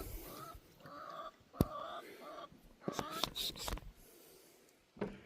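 Backyard hens clucking in short repeated calls, with a sharp knock about one and a half seconds in and a few clattering knocks around three seconds in.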